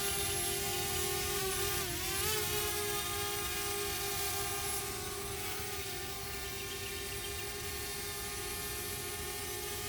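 DJI Spark quadcopter's propellers whining steadily in flight; the pitch dips and recovers about two seconds in and shifts slightly again about five seconds in as the motors change speed.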